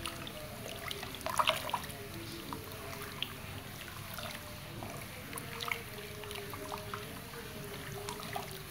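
A spatula stirring thick sago-flour batter in a pot: wet squelching and sloshing, with scattered clicks of the spatula against the pot, several of them together about a second and a half in.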